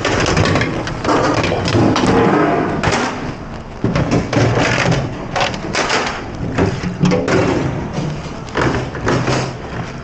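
Irregular knocks and thuds, many in quick succession, over background music.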